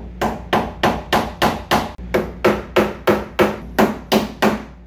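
A hammer strikes the end of a Phillips screwdriver seated in a stuck vent-window screw on a 1985 Chevy C10 door, to shock the screw loose. There are about fourteen even blows at roughly three a second, each ringing briefly.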